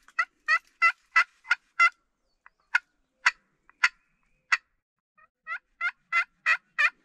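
Hen turkey yelps on a hunter's turkey call: a run of about six quick yelps, then four slower, spaced-out ones, then another fast run near the end.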